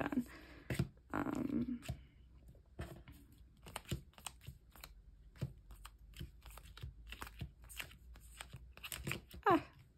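Plastic-sleeved photocards being thumbed through and slid into stacks: a run of light clicks, taps and plastic crinkles. A short murmur of voice comes about a second in, and a louder brief one near the end.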